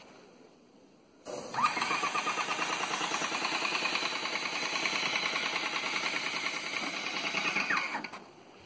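Krause & Becker electric airless paint sprayer running while paint is sprayed. Its pump starts sharply about a second in, rising in pitch as it comes up to speed, then runs with a fast, even pulsing for about seven seconds before winding down near the end.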